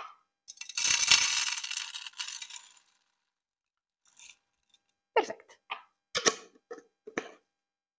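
Dry dyed rice poured from a glass jar into a clear plastic container: a loud rush of hissing, pattering grains lasting about two seconds, then a brief faint trickle about four seconds in.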